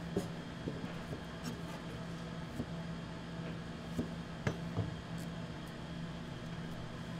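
Steady low hum of kitchen machinery, with scattered light clicks and knocks of kitchen utensils; the sharpest knocks come about four and four and a half seconds in.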